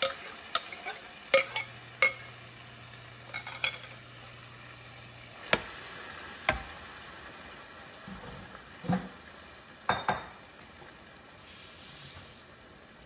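Marinated chicken pieces sizzling in hot oil in a square copper-coloured nonstick pan, with garlic and onion browning underneath. A metal spoon scrapes the chicken out of a glass bowl and stirs it, knocking and clinking sharply against the bowl and pan about a dozen times; the sizzle eases near the end.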